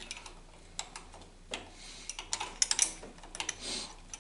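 Open-end wrench clicking on a snowplow pump solenoid's terminal nut as it is turned and repositioned: a scatter of sharp metal ticks, several close together about two and a half seconds in, with a short rustle near the end.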